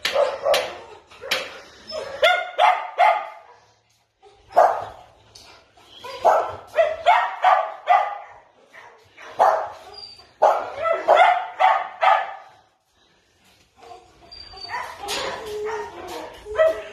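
Small dogs barking in bursts of several quick barks, with short pauses between the bursts.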